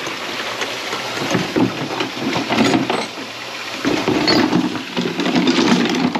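Water running from a kitchen faucet into a sink being cleared of a grease clog, with knocks and handling noises.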